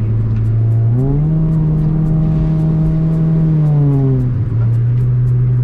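Honda Brio engine through an Ironcrafts Pro Circuit muffler, revved up: the note rises in pitch about a second in, holds for about three seconds, then drops back.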